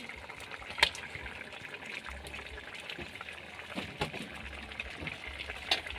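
Crab simmering in coconut milk in a wok over a wood fire: a steady bubbling hiss, with a few sharp clicks, the loudest about a second in.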